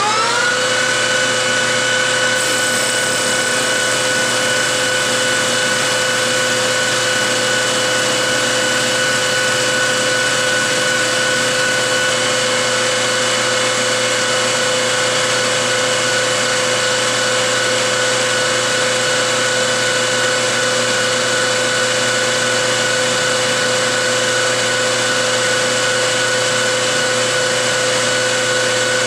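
A 13-inch metal lathe running at about 2,000 RPM: a loud, steady whine that settles at full speed just as it begins, then holds one pitch. A chrome-moly tube is being pressed against a tube spinning in the chuck to friction-weld them, and the joint heats to a red glow.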